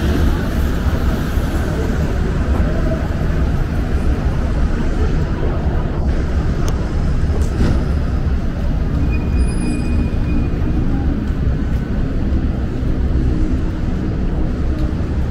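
Steady low rumble of downtown street traffic and city noise, with no single sound standing out.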